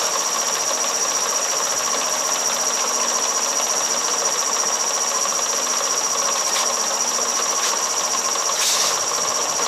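Shopsmith 18-inch jigsaw running steadily at about 900 RPM, its blade stroking up and down with a steady high whine. A few light knocks come in the second half, and a short, louder rasp comes near the end.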